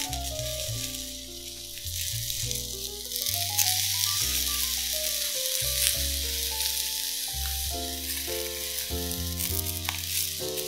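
Cucumber, baby bok choy and kohlrabi slices sizzling on a hot ridged grill pan, a steady hiss that grows louder about three seconds in as more bok choy goes down. Soft background music plays under it.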